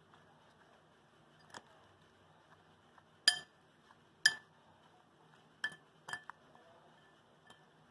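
A metal spoon clinking against a glass bowl while raw banana slices in spice powder are stirred and tossed. There are about six sharp, separate clinks, the loudest two a little past three and four seconds in.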